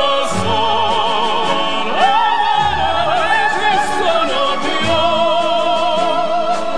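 Operatic-style music: a melody held in strong vibrato over a full backing.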